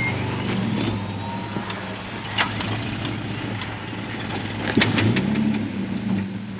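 Off-road Jeep's engine running at low revs as it crawls on the rocks, picking up briefly about five seconds in, with a couple of sharp knocks.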